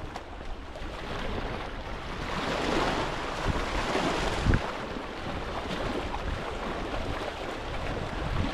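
Wind buffeting the microphone, with water lapping at the shore. The rush swells about a third of the way in, and there is a brief low thump about halfway.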